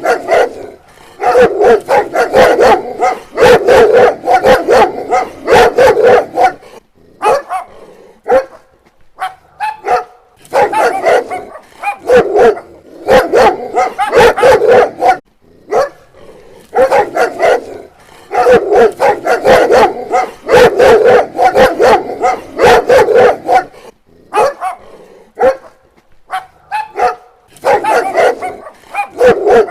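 Dog barking in long runs of rapid barks, broken every few seconds by brief pauses.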